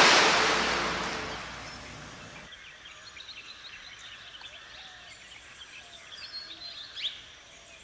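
A loud rush of noise, in step with a glass splashing into a swimming pool, dies away over the first two seconds, giving way to quiet outdoor ambience with small birds chirping.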